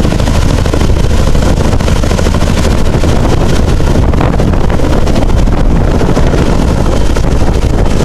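Small model helicopter's motor and rotor running steadily, a loud rattling drone.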